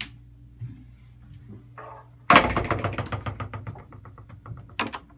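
A sudden sharp knock about two seconds in, followed by a fast rattle of knocks that dies away over about two seconds. Lighter clicks come at the start and near the end.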